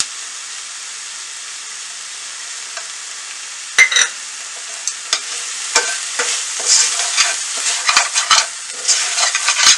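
Chopped onions and tomatoes sizzling steadily in oil in a stainless steel pan, sautéing down into a masala. From about four seconds in, a metal slotted spatula stirs and scrapes across the pan bottom in quick repeated strokes.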